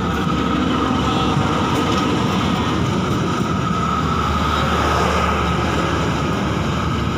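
Passenger train coaches rolling past on the rails: a loud, steady rumble of wheels on track, with a thin steady tone above it.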